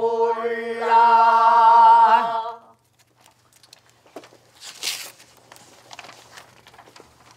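A group of voices holds one long sung note of a pansori song in unison, which ends about two and a half seconds in. Then there is quiet paper rustling with small clicks, and a louder rustle about five seconds in.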